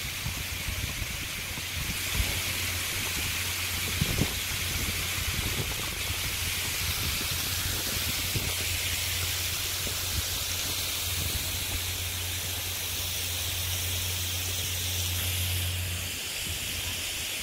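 Steady outdoor background hiss with a low steady hum beneath it, and a couple of brief soft bumps about two and four seconds in. The kookaburra does not call.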